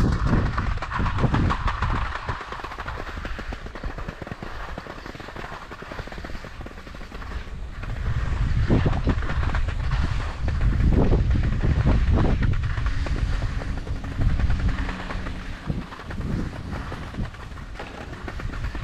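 Snow scraping and chattering under a rider being towed up a T-bar surface lift over firm, rutted spring snow, with a continuous low rumble. The rumble grows louder for several seconds around the time a lift tower goes by, about ten seconds in.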